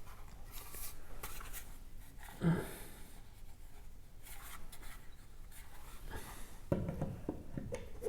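Handling noises of a plastic smart garage hub being slid and pressed onto its mounting bracket: scattered scraping, rubbing and light knocks, with one louder moment about two and a half seconds in and more handling near the end.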